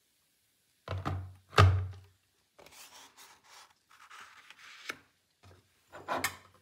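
A sheet of stiff paper being handled and laid into a plastic tub of water: two knocks against the tub about a second in, the loudest sounds, then paper rustling, and another knock near the end.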